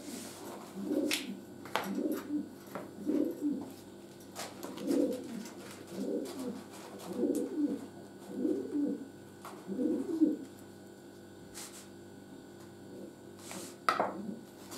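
A pigeon cooing: about eight low coos a little over a second apart, stopping after about ten seconds. Light clicks of a table knife on bread and a plate, with a knife scraping on a wooden chopping board near the end.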